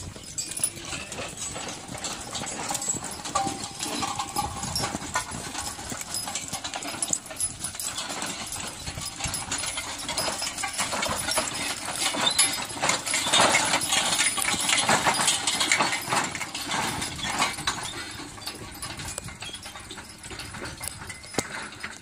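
A team of six draft horses walking past with a steel-wheeled disc harrow in tow: hooves clopping on a dirt track, harness chains jingling and the implement clattering. The sound grows loudest in the middle as the team passes close, then fades as it moves off.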